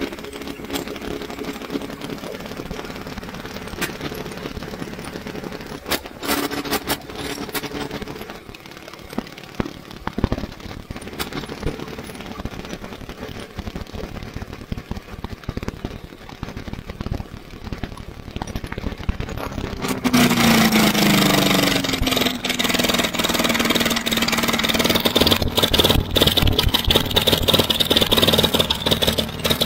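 Briggs & Stratton Quantum single-cylinder lawnmower engine running with its fan shroud removed. About twenty seconds in it gets suddenly much louder, its note dipping before it settles into a steady hard run.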